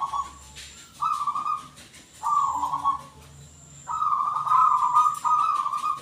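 Zebra dove (perkutut) cooing: a series of soft rolling, trilled coos, about a second apart at first, then two longer ones back to back in the second half.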